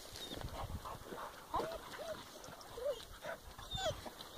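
Hunting hound whining in a string of short, pitch-bending yelps, with steps crunching on gravel and rock.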